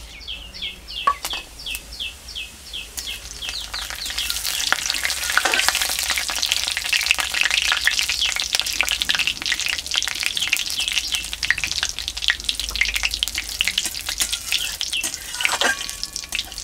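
Whole cumin seeds, bay leaf and whole garam masala crackling and sizzling in hot oil in an aluminium kadai, the tempering (phoron) for a curry; the sizzling swells about four seconds in and keeps up with many small pops. A bird chirps repeatedly over the first few seconds.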